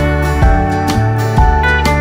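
Background music with a steady beat, about two beats a second, and notes that slide in pitch.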